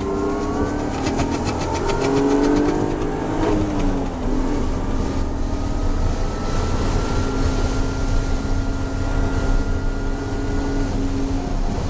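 BMW E36 M3's inline-six engine under acceleration, heard from inside the cabin: the revs climb, drop at a gear change about three and a half seconds in, then climb slowly again.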